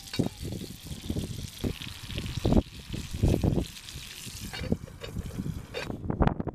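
Gusty wind buffeting the microphone, over a steady hiss that cuts off suddenly near the end.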